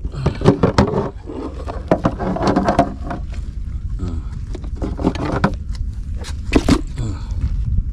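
Plastic cooler being opened and the catch handled inside it: a run of knocks, clicks and scrapes of plastic, the sharpest one late on, over a steady low rumble.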